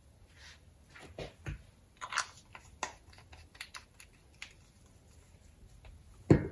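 Small handling sounds of hands working at a wooden worktop: scattered light clicks and brief rustles, then one sharp knock near the end.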